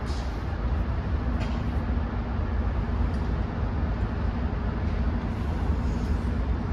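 Steady low rumble of a passenger train rolling past across the station tracks. A faint steady hum comes in about a second in.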